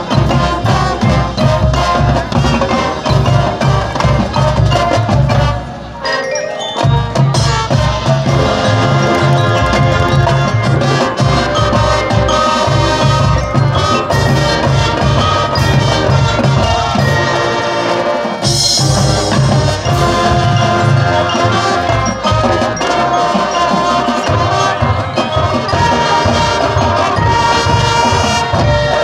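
Marching band playing its field show: full band with drums and the front ensemble's marimbas and other mallet percussion. The music thins and drops briefly about six seconds in, then comes back in full.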